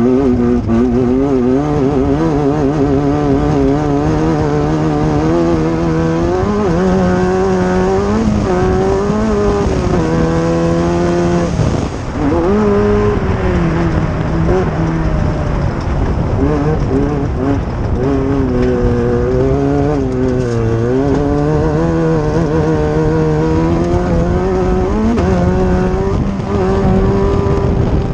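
Off-road race vehicle's engine running hard under load, its pitch rising and falling repeatedly as the throttle opens and closes, with a short drop in pitch about twelve seconds in, over a steady rush of wind and terrain noise.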